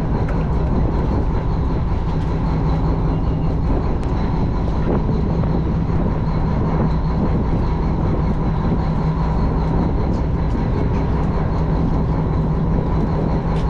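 A fishing boat's engine running steadily, a constant low drone with no change in speed.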